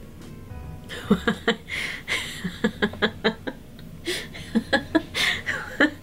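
A woman laughing, a long run of short breathy laughs that starts about a second in.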